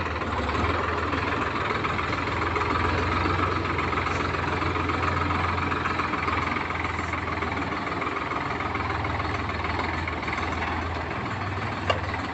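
Sonalika Tiger 55 tractor's diesel engine running steadily at low speed as the tractor moves off slowly. A single short, sharp click sounds near the end.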